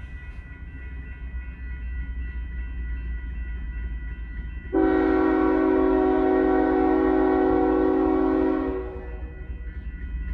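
Diesel locomotive horn sounding one long blast of about four seconds, starting a little before halfway and stopping near the end, over the steady low rumble of the diesel locomotives.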